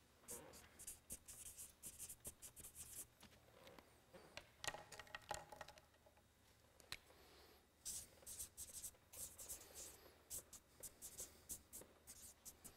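Marker pen writing on a flip-chart board: faint, quick scratchy strokes in several runs, with a pause of a second or two midway.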